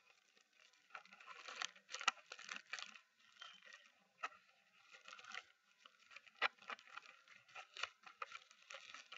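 Clear plastic clamshell packaging of seasoned seaweed snack sheets crinkling and crackling as it is handled and pried open. The sound is an irregular run of sharp clicks and crackles.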